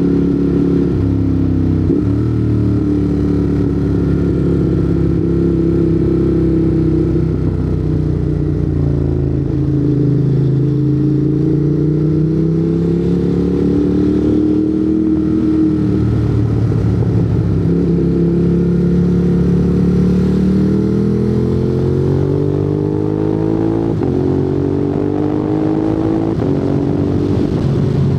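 Ducati Monster 821's 821 cc L-twin engine running through an aftermarket Termignoni exhaust while riding, the revs rising and falling several times as the bike accelerates and slows.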